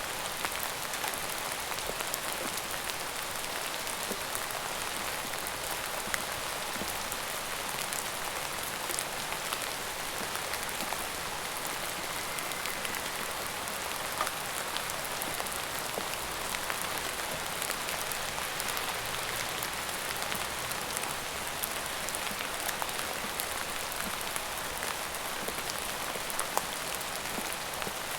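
Steady rain falling on a surface: an even hiss dotted with many small, distinct drop ticks.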